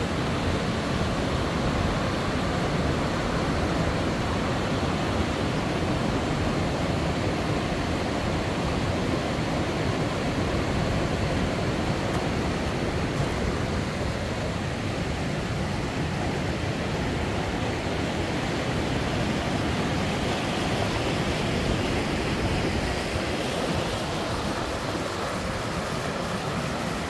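Steady, even rush of fast-flowing river water from the Youghiogheny River.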